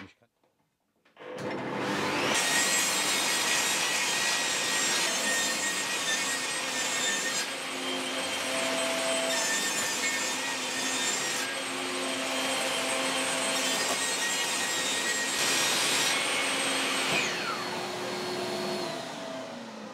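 Table saw switched on, its motor running up to speed with a whine, then running steadily while thin strips of plywood are ripped through the blade; near the end it is switched off and the blade spins down, its pitch falling away.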